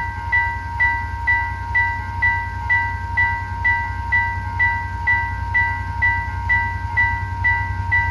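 Railway level crossing warning alarm sounding with the barriers down: a repeating electronic chime about twice a second over a steady tone, signalling that a train is approaching. A low steady rumble runs underneath.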